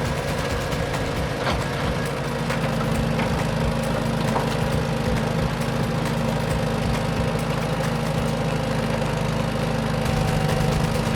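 Engine running steadily at an even pitch, with a few faint clicks over it.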